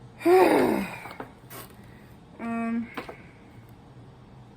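A woman's wordless frustrated vocal sounds: a loud falling groan, then a short steady hum about two seconds later, with a few light clicks from handling the packaging in between.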